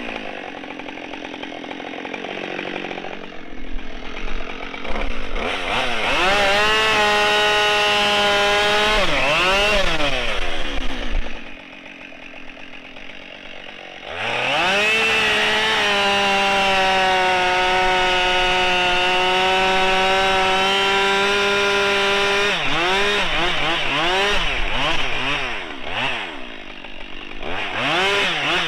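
Husqvarna 572XP two-stroke chainsaw bucking ash logs: it runs up to full throttle for a cut of a few seconds, drops back to idle, then makes a longer cut of about eight seconds at steady high revs. Near the end the throttle is blipped up and down several times.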